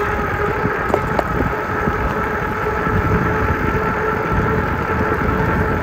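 Riding noise from a moving e-bike: wind on the microphone and tyre rumble, with a steady hum of several tones under it.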